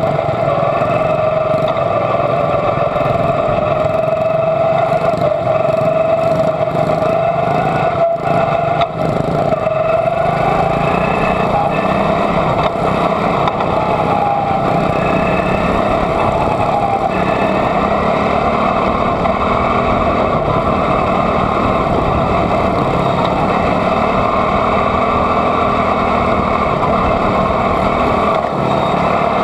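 Quarter midget's Honda single-cylinder four-stroke engine running steadily at low speed, with the engines of the cars packed around it. The pitch wavers slightly, and the sound is steady and loud throughout.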